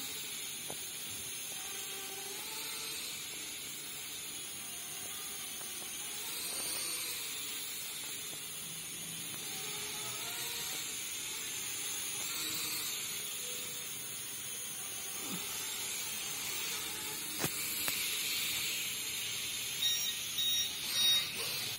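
Cheap toy quadcopter drone in flight, its small propellers and motors making a steady high whir, hiss-like, with a pitch that wavers as the motors speed up and slow down. A sharp tick comes about 17 seconds in, and a few louder knocks come near the end.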